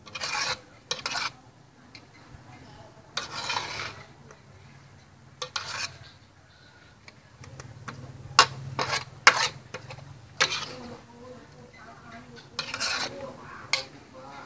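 Metal spatula and spoon scraping and clinking against a metal wok as stir-fried noodles are tossed. The strokes come in irregular bursts, with two sharp clanks about 8 and 9 seconds in.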